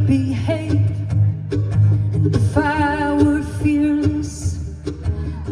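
A woman sings live, accompanied by acoustic guitar and mandolin. About halfway through she holds a long note with vibrato.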